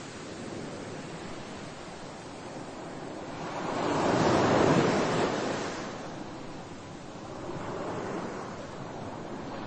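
Surf: waves washing in and drawing back, one big swell about four to five seconds in and a smaller one near the end.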